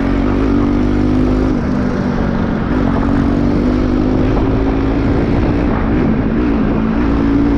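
Modified Bajaj Pulsar NS200's single-cylinder engine running loud under way at a fairly steady engine speed, its pitch dipping and rising slightly, over a strong low rumble.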